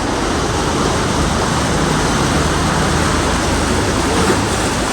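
Steady, loud rush of heavy rain, with a low hum of road traffic underneath.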